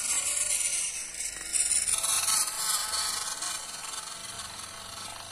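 Small radio-controlled toy pickup truck driving on rough concrete: a steady rasping noise of its small electric motor and gears, with the tyres grinding over grit. It is loudest about two seconds in as the truck passes close, then fades as it drives away.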